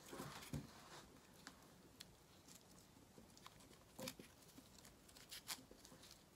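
Faint, scattered small crinkles and clicks of floral stem tape being pulled off the roll and wrapped around a wrist corsage's wired stems.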